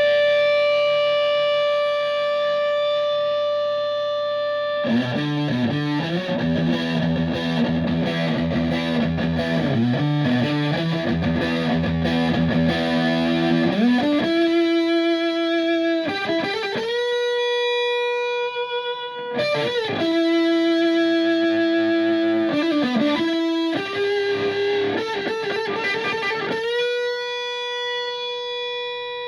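Electric guitar, a Stratocaster played through a Tone Bender MKII fuzz pedal into an Ampeg VT22 tube amp and 4x12 cabinet, giving a thick fuzz tone with long sustain. A held note rings first. About five seconds in comes a riff on lower notes, then single lead notes held long, with string bends sliding up and down between them.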